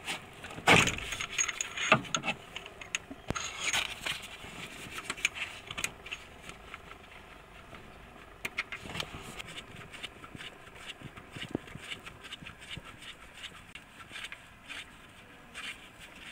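Metal hand tools clinking and scraping on the air-conditioning compressor's mounting bolt as it is fitted with a socket and extension. There are two loud clanks about a second and two seconds in, then a run of lighter ticks and clicks.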